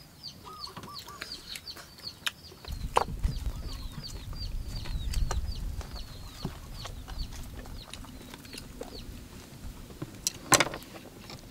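Birds peeping: rapid high chirps repeating a few times a second, thinning out and stopping about nine seconds in. A low rumble comes in about three seconds in, and a sharp knock sounds near the end.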